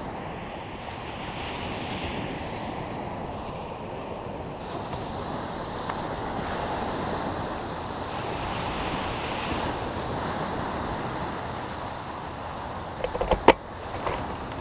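Wind rushing over the microphone mixed with small lake waves washing onto a sandy beach, swelling and easing. A few sharp knocks come close to the microphone near the end.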